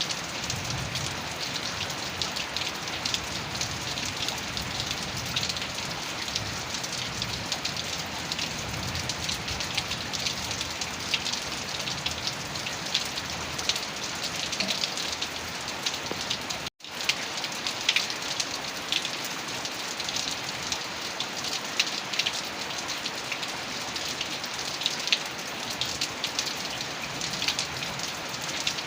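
Heavy rain falling steadily, a dense patter of drops. The sound cuts out for an instant about two-thirds of the way through.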